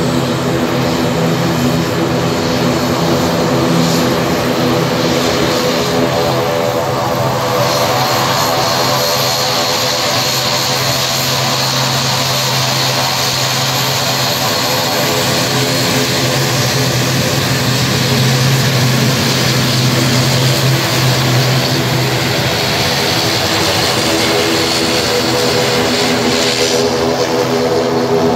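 ATR 72 twin-turboprop airliner taxiing with both propeller engines running: a loud, steady propeller drone with a high turbine whine over it.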